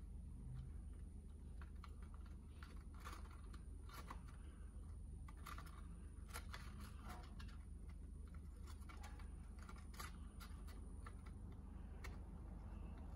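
Faint, irregular light clicks and ticks over a steady low hum.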